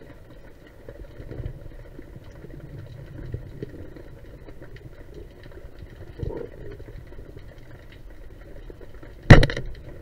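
Underwater, a low rumble of water with faint clicks, then about nine seconds in a single sharp crack with a brief metallic ringing as the speargun fires its shaft.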